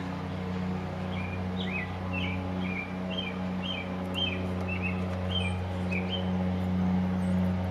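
A songbird sings a quick run of short chirps over a steady low hum.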